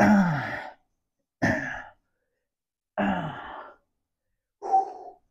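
A man's forceful, breathy exertion exhalations, four of them about a second and a half apart, some with a falling voiced tone, one with each pull of a resistance-band bent-over row.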